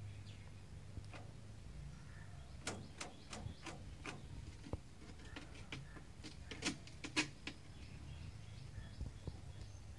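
Birds chirping in short, sharp ticks, in two clusters about three and seven seconds in, over a low steady hum.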